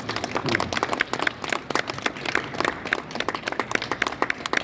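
Audience applauding, many hands clapping at an uneven, fast rate.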